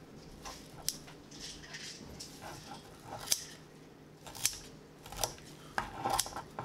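Kitchen scissors snipping through fresh parsley: a string of short, sharp snips at uneven intervals, roughly one every half second to a second.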